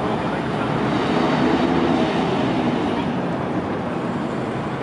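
A vehicle running steadily with continuous engine and rolling noise. It grows a little louder between about one and three seconds in.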